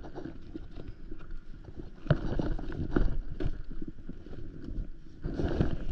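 Roll-top dry bag being handled right against the microphone: its stiff material rubbing and crumpling, with several knocks, the loudest about two and three seconds in and a cluster near the end.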